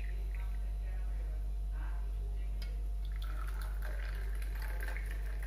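Hot milky jaggery tea being poured from a pan through a tea strainer into a mug, a trickling, splashing stream. About three seconds in the stream moves on to a second mug. A steady low hum runs underneath.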